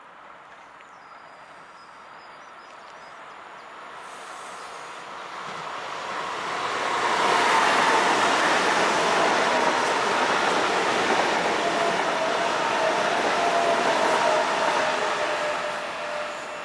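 ICE 3 high-speed electric train passing through at speed: a rushing noise swells over several seconds, stays loud for about eight seconds as the train goes by, then fades. A high whine running through it slides slowly down in pitch.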